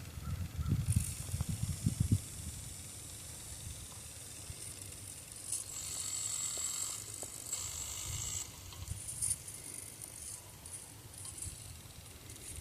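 Axial SCX24 micro RC crawler's small electric motor and gears whining in short spurts, longest from about six to eight and a half seconds in. Low rumbling bumps come in the first two seconds.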